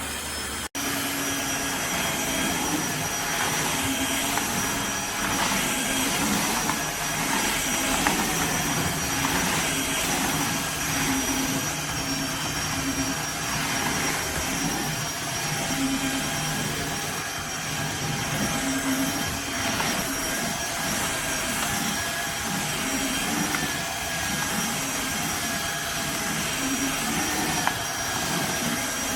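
Tineco iFLOOR 3 Breeze cordless wet-dry floor cleaner running steadily, its suction motor giving a high whine over a wavering low hum. There is a brief dropout less than a second in.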